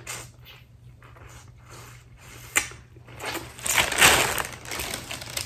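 Crunching and crackling from eating and handling boiled seafood: shells and wrappings worked by hand. There is one sharp snap about two and a half seconds in, and a louder stretch of crackling near the end.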